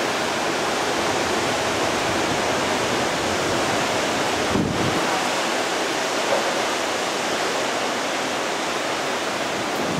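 Severe thunderstorm winds of about 70 mph with driving rain, heard as a steady rushing roar.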